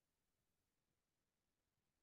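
Near silence: a faint, even noise floor with no distinct sound.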